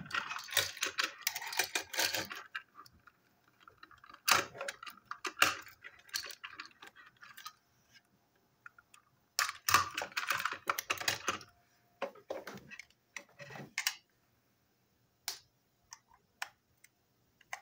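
Hard plastic parts of a battery-powered toy train engine handled and fitted together by hand: bursts of quick clicking and rattling, with a few single clicks near the end.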